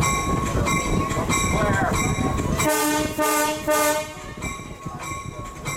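Diesel locomotive cab on the move, a low rumble under a bell ringing about twice a second; about two and a half seconds in the locomotive horn sounds one chord for about a second and a half.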